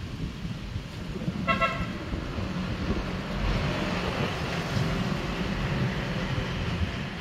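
A vehicle horn gives one short toot about a second and a half in, over the steady rumble of road traffic. From about halfway through, a passing vehicle grows louder.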